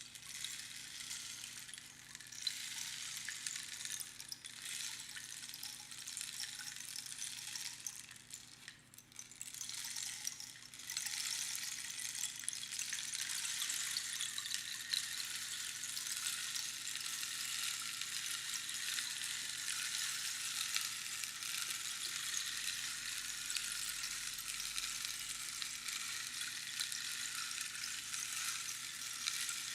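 Rainstick, its pebbles trickling through the tube past the inner pins in a dense, rain-like patter. A few shorter swells that rise and fade in the first ten seconds, a brief lull about nine seconds in, then one long steady pour.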